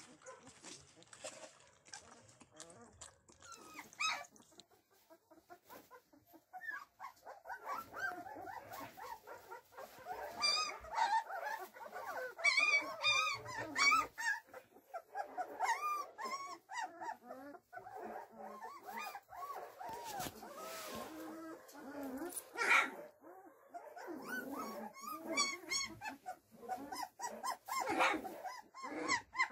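A litter of young puppies whimpering and yelping, many short high calls overlapping one another. The calls begin about six seconds in, after a quieter opening.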